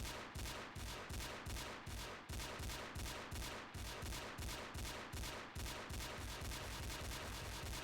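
Pistol shots fired in quick succession, about three a second. They quicken after about six seconds into near-continuous fire.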